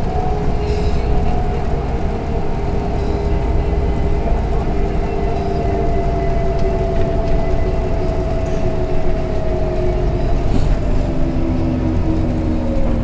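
Cabin sound of a LiAZ-5292 city bus on the move: steady engine and drivetrain hum over a low road rumble. A whine slowly falls in pitch, and a second, lower whine joins near the end.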